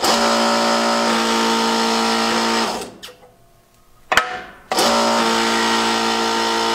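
The hydraulic pump of a Sunnen BP-10 press runs with a steady motor hum in two runs of about three seconds each, pressing a new race into a Harley-Davidson connecting rod. A clunk comes just before the second run.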